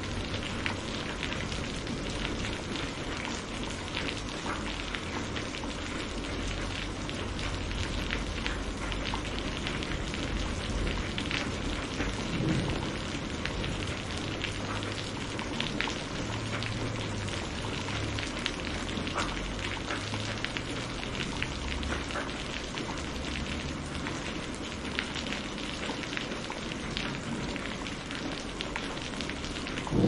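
Steady tropical rain falling on rainforest foliage, with many individual drops striking close by as separate sharp taps over the even hiss of the downpour.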